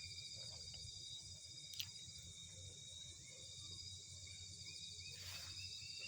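Faint, steady high-pitched insect trilling, with a sharp click about two seconds in and a short scraping noise near the end.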